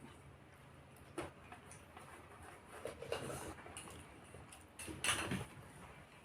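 Someone eating a meal: a few short clicks and scrapes, the loudest about five seconds in.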